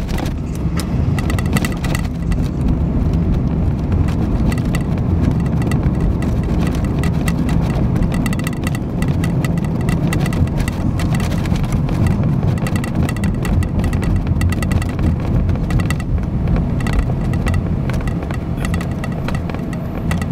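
Car driving along a city street, heard from inside the cabin: a steady low rumble of engine and tyres on the road.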